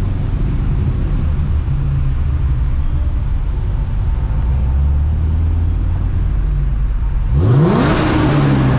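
A Corvette C6's Procharger-supercharged LS3 V8 rumbles at low revs, heard from inside the cabin. About seven seconds in, the driver floors it. The engine note climbs steeply with a loud rush of intake and exhaust noise that echoes off the covered space around the car.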